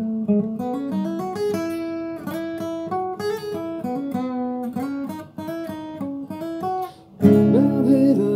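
Acoustic guitar picking out a melody of single notes that step up and down, becoming suddenly louder and fuller about seven seconds in.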